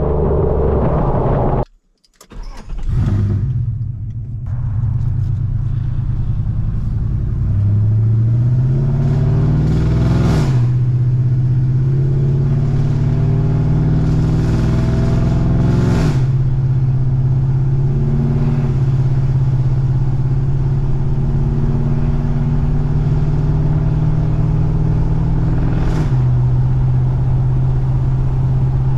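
Exhaust note of a 2014 GMC Sierra's 5.3 V8 through long-tube headers and a Borla ATAK exhaust, loud and steady. The revs climb from about eight to ten seconds in. There is a brief dropout about two seconds in, and sharp breaks near ten, sixteen and twenty-six seconds, each followed by steady running.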